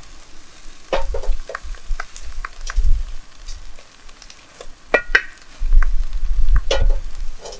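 A driftwood campfire crackling and popping with scattered sharp clicks, while whole fish sizzle in olive oil in a cast-iron Dutch oven hung over the flames. Intermittent low rumbles come and go.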